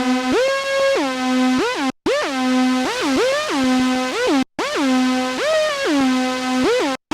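Formanta Polivoks analogue synthesiser playing a single-voice lead line, its notes gliding up and down in pitch. The same short phrase repeats about every two and a half seconds, with a brief break between phrases.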